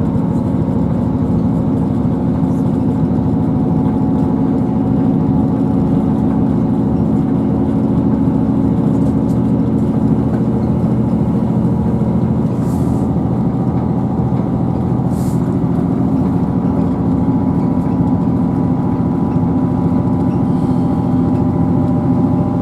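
Inside a Class 158 diesel multiple unit under way: the steady drone of its underfloor diesel engine and transmission over the rumble of wheels on rail.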